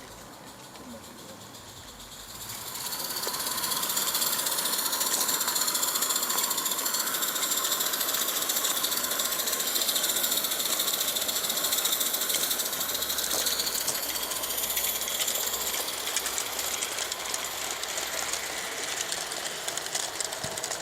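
A small live steam garden-railway locomotive running, with rapid exhaust beats and a steady hiss of steam. It comes in loud about two and a half seconds in.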